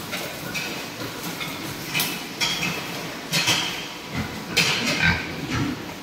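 Pigs grunting and squealing in a group, in short irregular bursts that are loudest about four to five seconds in.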